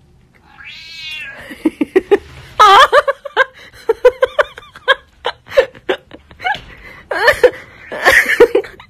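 A cat meowing and yowling in a long series of short calls, with a wavering call about a second in and the loudest calls about two and a half seconds in and near the end. Sharp clicks fall between the calls.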